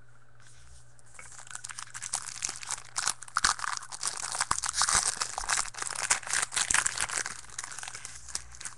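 Trading card pack wrapper crinkling and crackling as it is torn open and handled, a dense run of crackles that starts about a second in and dies down near the end.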